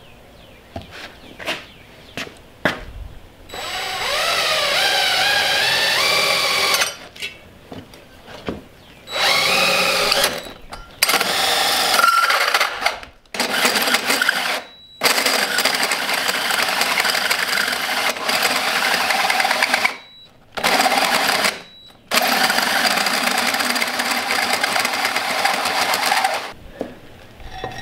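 Small electric drill driving a 2¼-inch hole saw through a steel plate, cut dry without cutting oil. After a few knocks at first, it runs in about seven bursts of a few seconds with short stops between them. In the first bursts a whine rises and falls in pitch.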